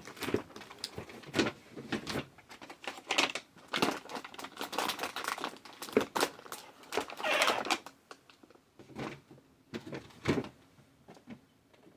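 Irregular rustling, crinkling and light clicks of small wrapped items and packaging being handled and packed into a basket; the handling thins out to a few scattered clicks over the last few seconds.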